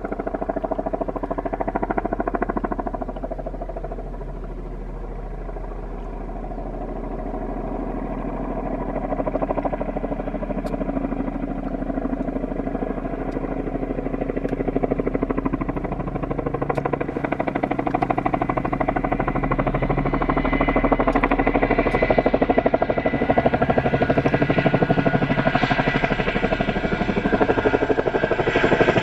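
Boeing CH-47 Chinook tandem-rotor helicopter flying low on approach: the rapid beat of its two rotors with the sound of its twin turboshaft engines. It dips slightly a few seconds in, then grows steadily louder as the helicopter comes closer.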